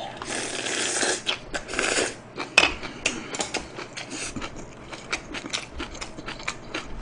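A person chewing food close to the microphone: a dense stretch of chewing noise in the first couple of seconds, then scattered wet smacks and mouth clicks, with one sharper click about two and a half seconds in.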